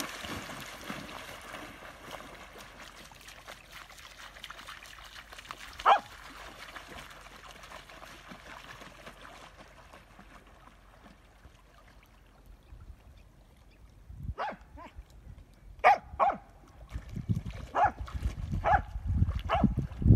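Water splashing as a dog bounds into the lake, then a single sharp dog bark about six seconds in and a run of short barks over the last six seconds, with low rumbling noise building under them near the end.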